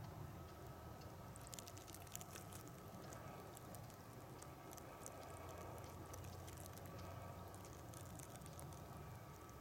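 Near silence: a faint steady low hum with scattered soft ticks.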